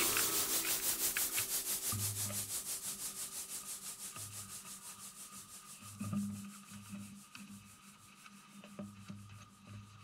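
Car air-conditioner blower fan wheel turning and slowing down, making an even rhythmic rubbing about five times a second that fades away over about six seconds. A few faint knocks follow.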